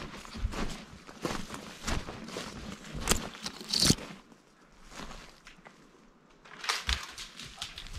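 Footsteps through forest undergrowth: boots crunching on twigs and dry brush, with branches brushing past. The steps pause for about two seconds past the middle, then start again.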